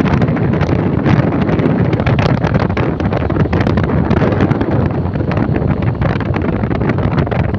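Loud wind buffeting the microphone of a phone held out on a moving vehicle, over a steady low rumble of travel along the road.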